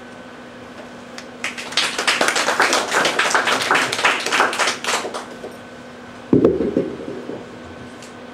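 Small audience applauding for about three and a half seconds. About a second after the applause ends there is a short, low thump of the microphone being handled.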